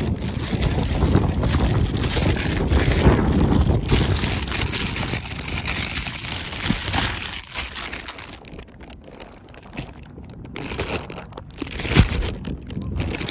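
Thin plastic shopping bags rustling and crinkling as they are handled and opened. It goes quieter a little past the middle, then a sharp crackle near the end is the loudest moment.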